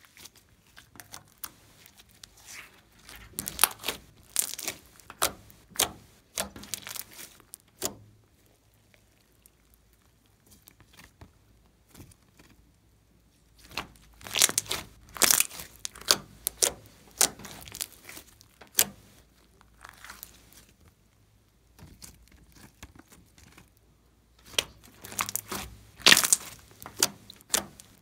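Hands squeezing, stretching and poking soft pink slime: sticky, wet crackles and small pops, coming in three flurries with quiet pauses between.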